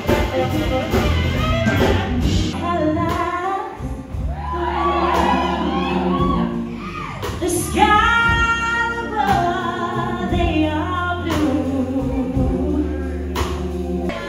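Live band music with a woman singing into a microphone, holding long notes about halfway through.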